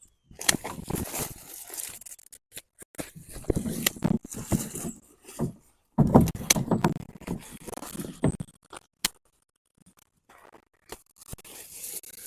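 Rustling and scraping of hands working among potato plants and soil, in uneven spells with sharp clicks, dropping to almost nothing for about two seconds a little after the middle.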